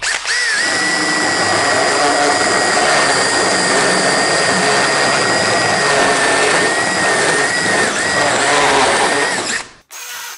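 Drill spinning a coarse burr that grinds out a knot in wood: a steady high whine over the rasp of the cutting. It stops suddenly near the end.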